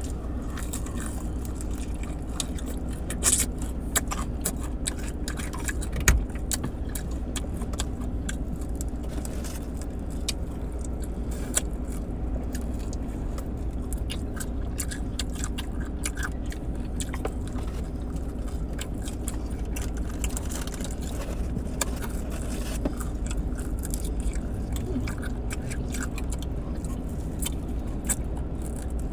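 Biting and chewing crunchy fried chicken wings, with scattered sharp crunches, over a steady low hum inside a car.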